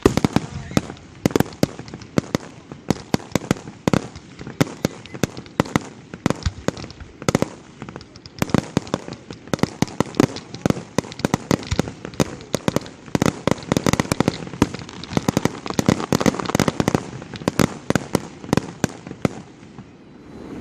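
Aerial fireworks going off in a dense, rapid barrage of sharp bangs and pops, many a second, stopping shortly before the end.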